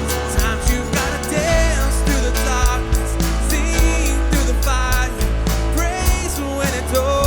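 Worship band playing a pop-rock song live: drum kit with a steady beat, bass guitar and piano, with singing coming in about a second and a half in.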